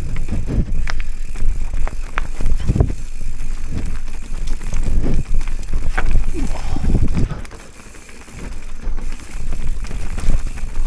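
Giant Trance full-suspension mountain bike descending a rough trail: tyres rumbling over dirt and rocks, with frequent sharp knocks and rattles over bumps. It goes quieter for about a second about three quarters of the way through.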